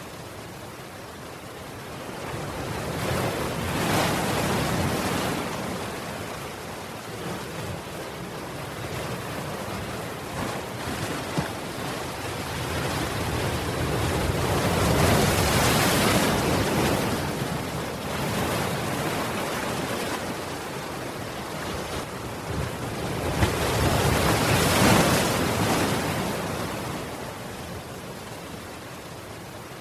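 Ocean waves breaking against a seawall and washing back, the surf rising and falling in three big surges: a few seconds in, around the middle, and near the end.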